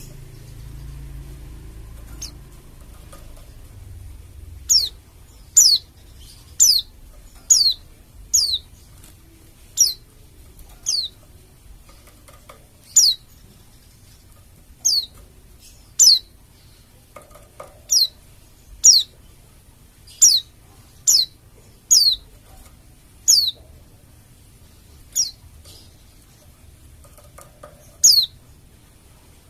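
Pleci (white-eye) from Bali calling: a run of short, high, steeply falling whistled notes, about one a second, starting a few seconds in. This is a lure call that keepers play to get their own pleci singing.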